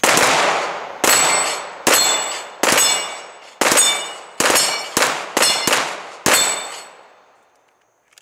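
Two handguns firing rapidly at a steel dueling-tree target, about ten shots in six seconds, each hit answered by the ringing clang of the struck steel plates. The shooting stops about six seconds in and the ringing dies away.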